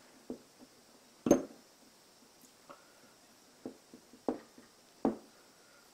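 Metal parts of a grinding arbor clicking and knocking as a key is worked by hand into the keyway of the shaft and pulley: about half a dozen short, sharp knocks, the loudest about a second in, one with a brief ring. The key is hanging up on the pulley's keyway and won't go down.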